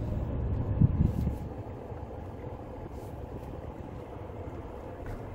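Car interior noise while driving: a steady low engine and tyre rumble heard from inside the cabin, with a couple of low thumps about a second in, after which the rumble settles quieter.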